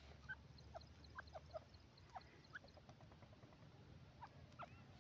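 Faint, short bird chirps, one or two a second, over a low steady background hum.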